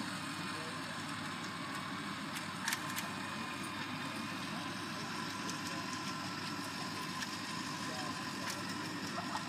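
Pickup truck engine idling steadily, an even low rumble that neither revs up nor falls away.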